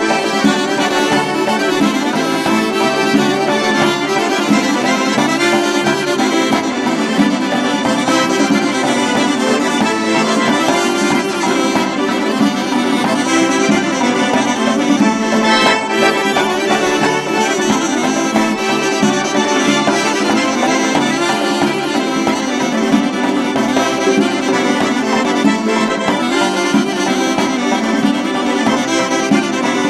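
Instrumental background music with sustained chords and a steady melody.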